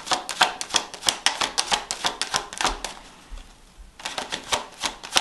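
A tarot deck being shuffled by hand: a quick run of cards clicking and slapping together, with a short pause about three seconds in before the shuffling starts again.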